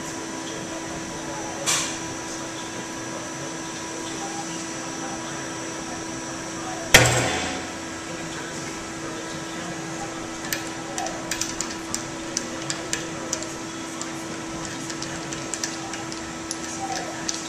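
Stainless steel tensile specimen snapping in a tensile testing machine about seven seconds in: one sharp bang with a short ringing decay, the fracture that ends a pull-to-failure test. A fainter snap comes earlier, a steady hum runs underneath, and later come light metallic clicks as the grips are handled.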